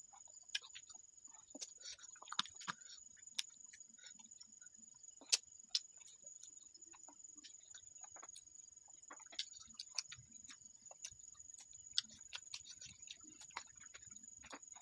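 Someone eating frog adobo by hand: soft, scattered mouth smacks and chewing clicks at irregular intervals, a few louder than the rest, over a steady high-pitched whine.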